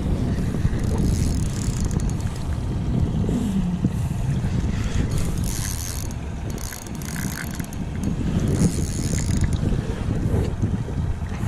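Wind buffeting the microphone, with a spinning fishing reel squeaking and grinding in several short spells as it is worked against a big redfish. The squeak comes from a reel strained by the fight.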